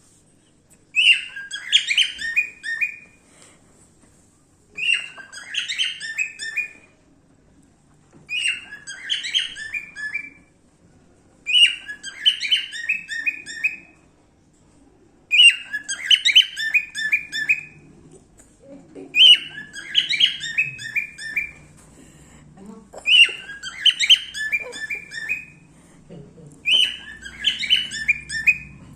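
A cockatiel chirping, repeating the same short phrase of quick notes eight times, about every four seconds.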